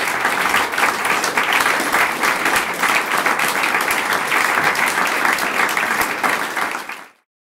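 Theatre audience applauding, a dense steady clatter of many hands clapping that cuts off abruptly near the end.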